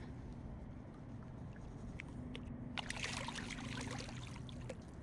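Water splashing and trickling around a blue catfish held in the river shallows for release, busiest around the middle, over a low steady hum.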